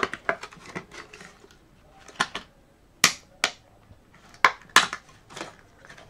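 Clear plastic blister pack of a laptop RAM module being prised open by hand: a string of sharp plastic clicks and crackles, with a few louder snaps in the second half.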